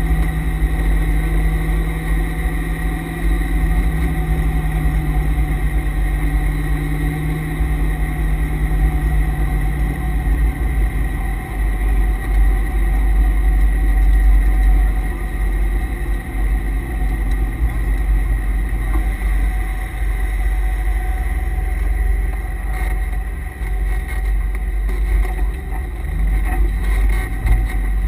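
Cabin sound of a C5 Corvette Z06's LS6 V8 running at low, steady revs with a deep rumble, its note dropping lower about ten seconds in. Under it runs a steady whine from the car's noisy transmission and differential coolers.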